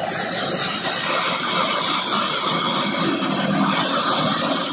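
Blowtorch flame burning with a steady hiss as it heats a radiator core.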